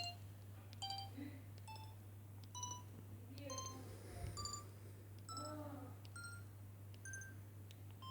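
Samsung SGH-X210 mobile phone playing a ringtone through its small speaker: a slow melody of short, separate beeping notes that jump between pitches, one or two a second.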